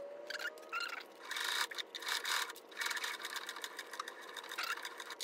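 Domestic sewing machine stitching in short stop-and-start bursts, sewing the binding down on a thick quilted oven mitt.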